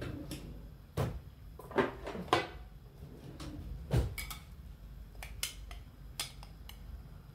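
A stainless steel skimmer clinking and knocking against a glass bowl as raw chicken bones are scooped out. There are a handful of sharp knocks, the loudest about two and four seconds in, followed by lighter ticks.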